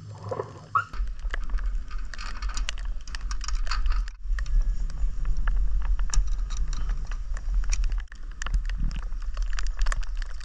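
Wind buffeting a small camera's microphone high up a sailboat's mast, a low rumble that sets in about a second in and dips briefly twice, with many scattered clicks and taps of hands and pliers on the metal mast fittings and wire shrouds.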